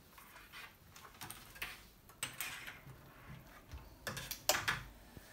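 Thermaltake Core P3 open-frame PC case being turned around on a wooden desk: scattered light knocks and scrapes of its metal frame and feet on the desktop, with a quick cluster of louder knocks about four seconds in.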